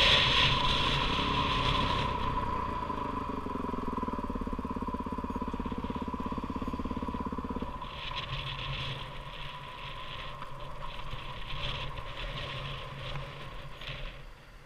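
Dirt bike's single-cylinder engine easing off from riding to a steady low-speed chug. The engine note drops out abruptly about eight seconds in, leaving quieter, irregular crunching and scuffing sounds.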